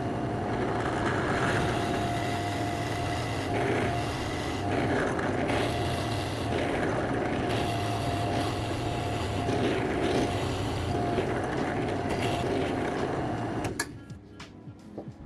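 A power tool motor running steadily under load with a hissing, whirring noise. It starts abruptly and cuts off suddenly near the end.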